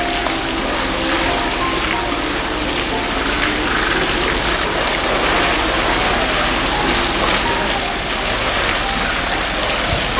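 Pool water splashing and churning steadily as two polar bears wrestle in it, with soft background music of short scattered notes underneath.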